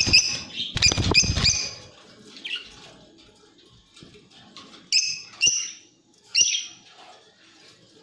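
Caged lovebirds giving short, sharp, high chirps: a quick run of them in the first second and a half over a loud low rustle, then single chirps about five, five and a half and six and a half seconds in.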